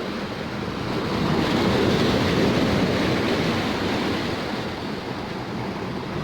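Sea waves washing, with wind buffeting the microphone; the sound swells a little between about one and three seconds in.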